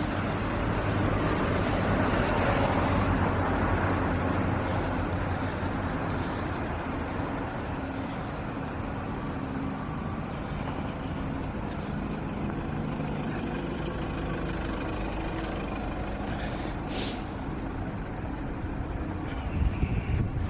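Busy city street traffic, with the steady low running of large diesel vehicles such as buses and lorries over the hiss of passing traffic. It is a little louder in the first few seconds, and a brief sharp hiss comes about three-quarters of the way through.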